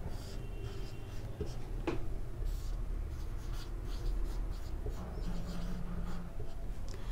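Marker writing on a whiteboard: faint scratching and squeaking of the tip as words are written out, with a sharper click about two seconds in.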